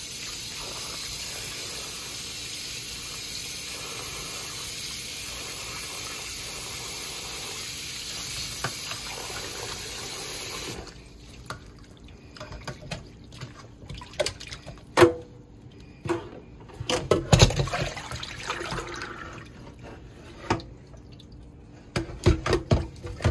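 Cold water running steadily from a kitchen tap onto turkey necks in a stainless steel bowl, shut off abruptly about halfway through. After that, wet handling of the meat with splashes and sharp knocks against the metal bowl, loudest near the end as the water is tipped out into the sink.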